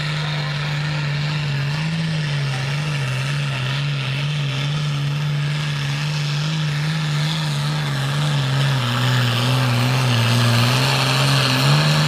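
Limited pro stock pulling tractor's turbocharged diesel engine running hard at high, steady revs under load as it pulls the weight sled. The pitch sags a little and the sound grows louder over the last few seconds as the load builds.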